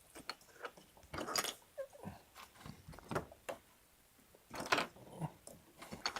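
Small plastic building pieces clicking and knocking together as they are picked up and stacked by hand, in scattered irregular taps.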